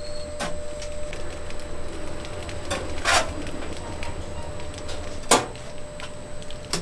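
Noodle dough sheeting machine running with a steady low hum and a faint whine, as the dough sheet winds onto its plastic roller. A few sharp clacks come through, the loudest about five seconds in.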